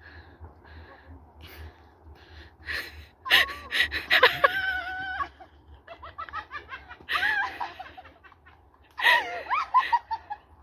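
People laughing in several loud, high-pitched bursts: about three seconds in, again around seven seconds, and near the end.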